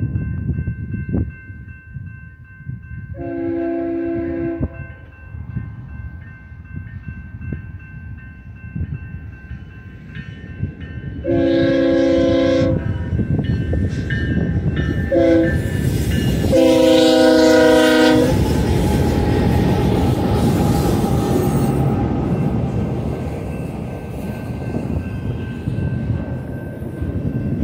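A BNSF GE ES44DC diesel locomotive sounds its multi-note air horn in four blasts, long, long, short, long: the standard warning for a grade crossing. A diesel rumble runs underneath, and after the last blast the locomotives and cars pass close by with loud wheel-on-rail noise.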